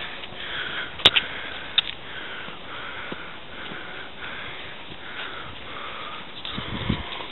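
Footsteps and camera handling noise from someone walking with a handheld camera: a soft swish repeating about once a second, with two sharp clicks a second or so in.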